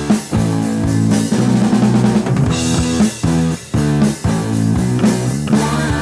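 Rock band recording: electric guitar notes held over a steady drum-kit beat with bass drum and snare.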